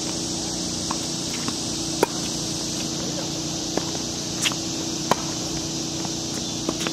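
Tennis ball struck by rackets and bouncing on a hard court during a baseline rally: sharp single pops about a second or so apart, the loudest about two seconds in, over a steady hiss.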